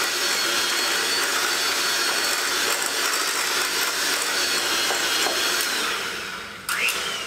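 Electric hand mixer running steadily, its beaters churning a thick cream cheese and spinach mixture in a bowl. The motor slows near the end, then gives a brief rising rev just before it stops.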